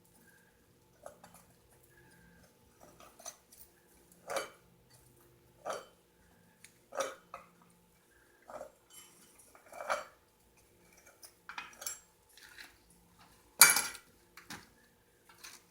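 A metal tool scraping and knocking inside a crucible to clear out leftover metal and dross: irregular clinks and scrapes, with the loudest clank near the end. A faint steady hum runs underneath.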